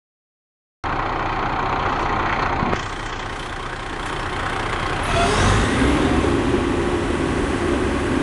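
Tower ladder fire truck's engine and aerial hydraulics running. About four seconds in the engine speeds up and a rising whine climbs with it, as the aerial is powered up. The sound starts after a short gap of silence.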